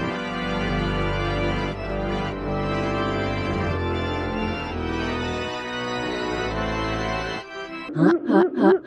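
Organ music with held chords, stopping about seven and a half seconds in. About a second later comes a cartoon springy sound effect, repeating quickly at about five times a second.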